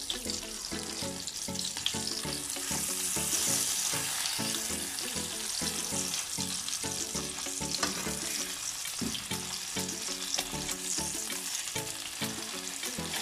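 Breaded pork chops sizzling steadily in hot oil in a frying pan, with a few light clicks of a metal fork against the pan as the chops are turned over.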